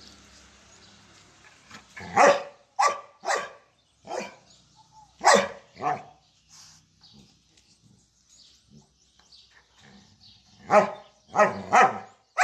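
A dog barking in short, sharp barks: a quick run of three about two seconds in, a few more around five seconds, a pause, then a fast string of barks near the end.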